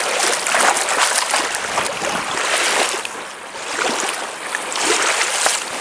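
Shallow lake water sloshing and splashing, the hiss swelling in surges about every second and a half.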